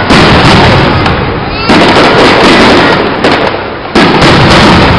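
Aerial firework shells bursting overhead: three loud booms, at the start, about a second and a half in and near the end, with a smaller bang between the last two, each dying away slowly.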